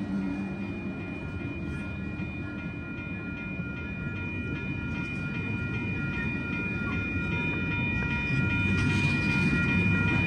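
Amtrak passenger train rolling past close by: a steady rumble of steel wheels on the rails that grows louder over the last couple of seconds. Grade-crossing bells ring over it as steady high tones.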